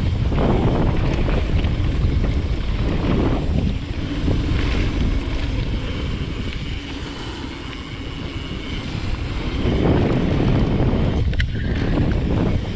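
Wind buffeting an action camera's microphone and mountain-bike tyres rumbling over a dirt-and-gravel trail during a fast descent. The rush eases off about halfway through, then builds again, with one sharp click near the end.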